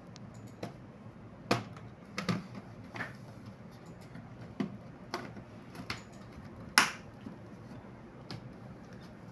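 Irregular sharp clicks and snaps from prying and handling a laptop's plastic bottom case, about nine of them, the loudest a little before seven seconds in. The case is not coming open.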